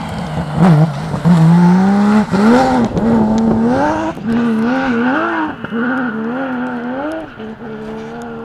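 Porsche 911 rally car's flat-six engine at full throttle passing close by. Its note climbs and drops sharply at each gear change, then wavers up and down with the throttle as the car drives away, fading near the end.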